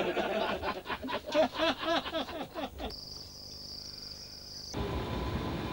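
A group of people laughing heartily in quick rhythmic bursts, which fade after about three seconds. A high, steady insect trill follows, and a little before the end it gives way to the steady rumble and hum of a boat motor.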